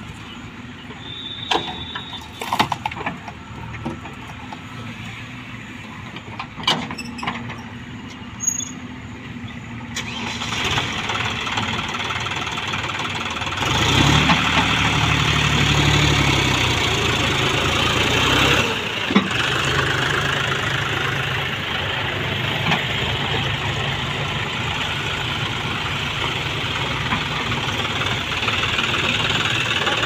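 Diesel engine of a JCB 3DX backhoe loader, quiet at first with a few sharp knocks. The engine then picks up and revs hard for several seconds about fourteen seconds in, and runs steadily under load as the backhoe digs and loads soil.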